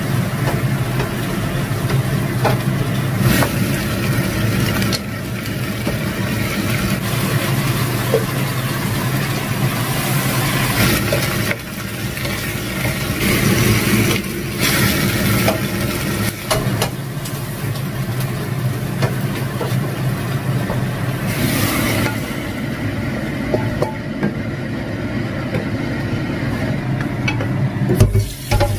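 Vegetables stir-frying in a wok on a gas stove: sizzling, with a spatula scraping and knocking against the pan now and then, over a steady low hum. Near the end the wok is set down in a steel sink with a sharp clank.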